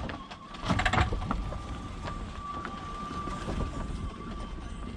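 Vehicle engine running, a low rumble, with a short clatter of rattles and knocks about a second in and a faint steady high whine, on a rough dirt road.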